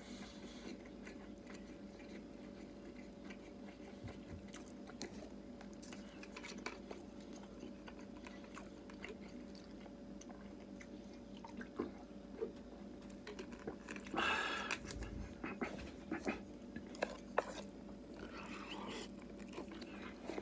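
A man chewing food close to the microphone, with scattered small clicks and a steady low hum underneath. A louder, brief rustling burst comes about two-thirds of the way through.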